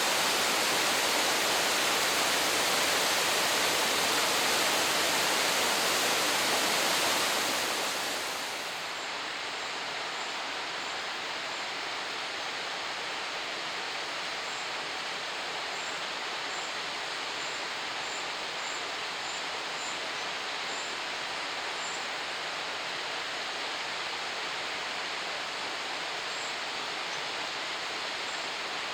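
Steady rush of a 76 m three-tiered waterfall. It is louder and hissier for the first eight seconds or so, then drops to a softer, duller rush.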